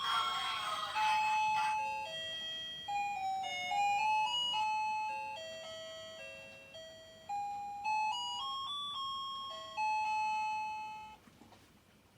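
Electronic chime playing a slow, simple melody one note at a time, each note struck sharply and fading, like a public time-signal chime. A voice or synthetic singing overlaps the first two seconds, and the chime stops about eleven seconds in.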